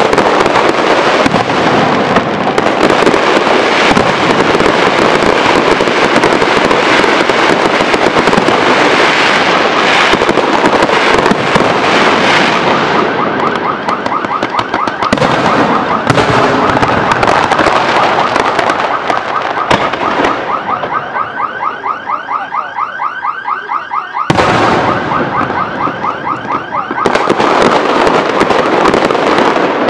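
Aerial fireworks display: shells bursting and crackling in a dense, continuous barrage. From about thirteen seconds in, the barrage thins and a fast, even pulsing sound comes through, clearest a little past the middle, until the dense bursts return near the end.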